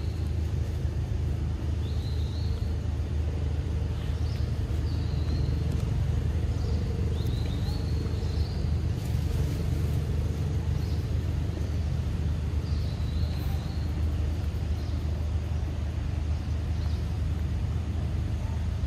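A steady low rumble with a hum in it runs throughout, the loudest thing heard. Short high chirps sound now and then over it, several in the first half and one more later on.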